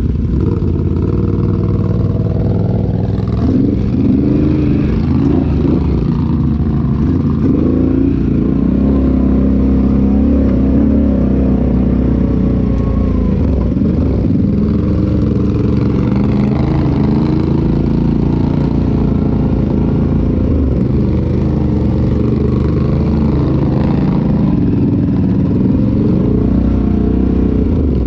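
Off-road side-by-side engine running continuously under changing throttle, its pitch rising and falling as it revs, with rattling from the vehicle over rough trail.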